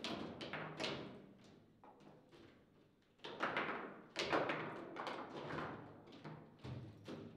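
Table football game in play: irregular sharp knocks and taps of the ball against the plastic players and the table. A lull about two to three seconds in, then a run of harder hits.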